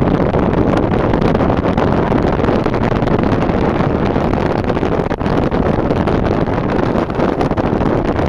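Loud, steady wind noise buffeting the microphone, a dense rushing rumble with no distinct events.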